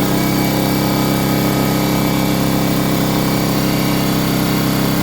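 Fortress 27-gallon 200 psi air compressor running steadily at full load, with a loud, even motor and pump hum.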